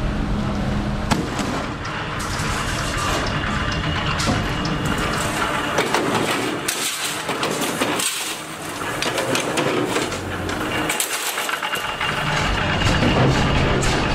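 Sheet-metal workshop noise: thin metal sheets rattling and clattering as they are handled and cut, with many sharp knocks and a machine running.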